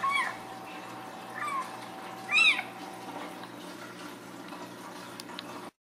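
Ragdoll cat meowing three times, short calls that rise and fall in pitch, the loudest about two and a half seconds in.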